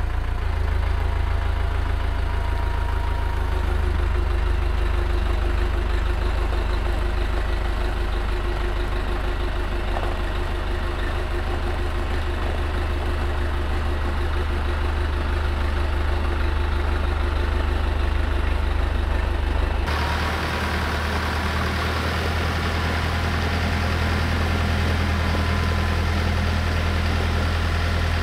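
Compact tractor engine running steadily at idle. About two-thirds of the way in, the sound turns harsher and noisier as the tractor pulls away.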